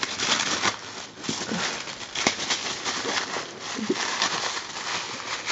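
Paper and plastic packaging rustling and crinkling as it is handled and unwrapped, with small clicks. Two brief, faint voice-like sounds come about one and a half and four seconds in.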